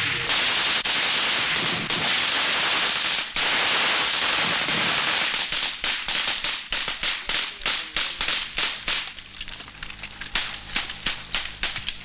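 Several Kalashnikov-pattern rifles firing at once: a dense, continuous crackle of gunfire for about the first six seconds, then thinning into separate shots and short bursts.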